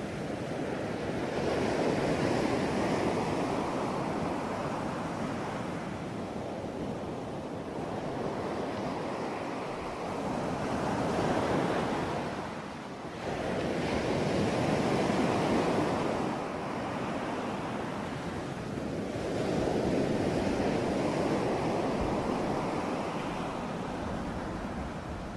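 Ocean waves breaking and washing in, a steady roar of surf that swells and ebbs with each wave, about five surges.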